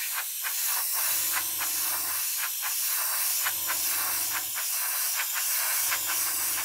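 Airbrush spraying thinned paint at about 17–18 PSI: a steady hiss of air with short spitting pulses. A low hum comes and goes three times, each lasting about a second.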